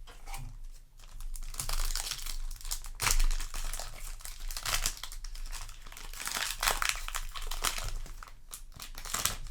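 Crinkling of a foil booster pack of Yu-Gi-Oh! cards being torn open and handled, with cards shuffling, in crackly bursts.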